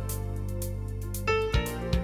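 Instrumental background music: sustained bass and plucked and keyed melody notes, with two drum hits in the second half.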